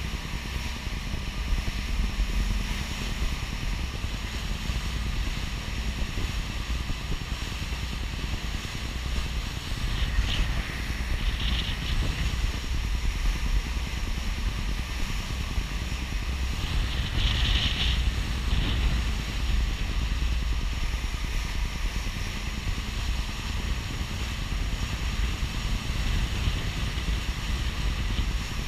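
Pilot boat running at speed: a steady engine drone mixed with water rushing along the hull and wind on the microphone, with brief higher sounds about ten and seventeen seconds in.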